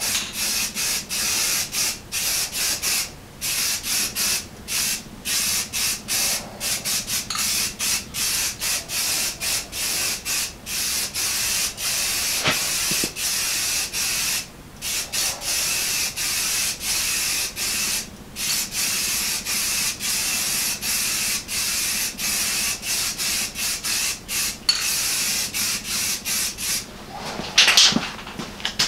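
Rust-Oleum Professional aerosol spray paint hissing from the can in repeated passes, broken by many brief pauses as the nozzle is released; this is a light first flash coat. A short louder sound comes near the end.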